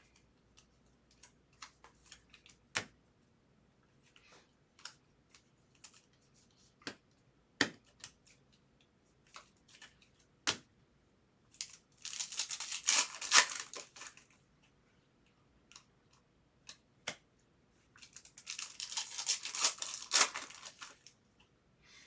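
Foil trading-card pack wrappers torn open and crinkled, twice, each for about two seconds: once about halfway through and again near the end. Between them come scattered light clicks and taps of cards being handled.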